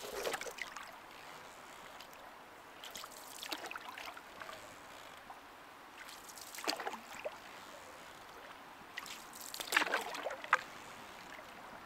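Canoe being paddled with a wooden paddle: four strokes, each a short splash and swirl of water as the blade pulls through, about every three seconds.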